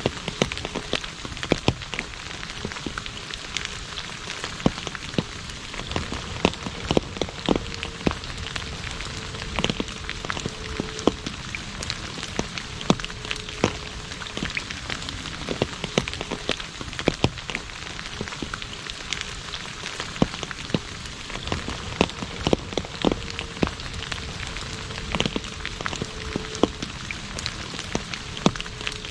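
Rain falling on an asphalt road: a steady patter, with many separate drops striking sharply close by.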